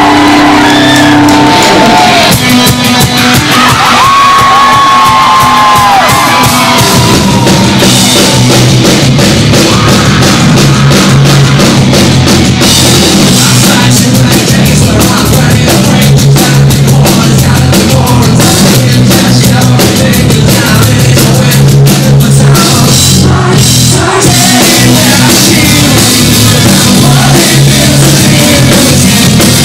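Hard rock band playing live at very high volume in a hall: distorted electric guitar, bass guitar, drums and vocals, with the audio near its limit throughout. The opening has held, bending notes, and the band grows fuller and denser about eight seconds in.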